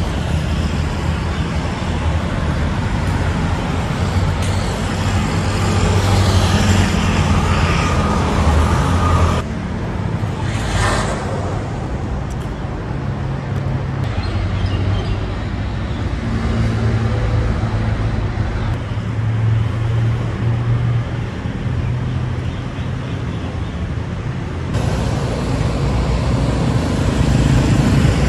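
Steady vehicle engine and traffic noise, with low steady hum, changing abruptly about nine and a half and twenty-five seconds in.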